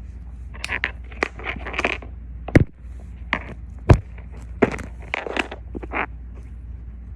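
Close-up crackling and crinkling from a squishy toy being squeezed and handled, ASMR style, in a string of short bursts. There are two sharp clicks, about two and a half and four seconds in, over a steady low hum.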